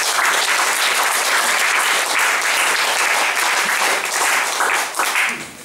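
Audience applauding, starting up loudly and dying away near the end.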